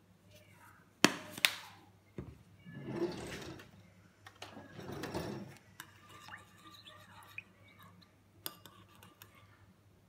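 Two sharp plastic clicks from a spice shaker being handled, then handling noise, then a metal spoon stirring sauce in a small ceramic bowl, with light clinks of spoon against ceramic.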